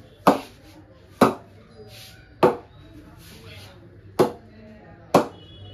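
A DSC Black 5 English willow cricket bat being ping-tested, struck on its face five times with sharp knocks about a second apart. The test checks how the blade rings and responds.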